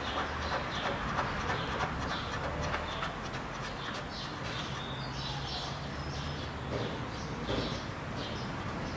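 Faint clicks of the steering rack's adjusting nut being screwed back in against its spring, over a steady low hum. Short faint high chirps come in from about halfway through.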